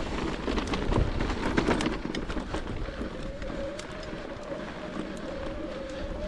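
Santa Cruz Heckler electric mountain bike ridden fast down a rough trail: tyres and frame clattering and knocking over rocks, loudest in the first two seconds. A steady whine, the assist motor, comes in about three seconds in.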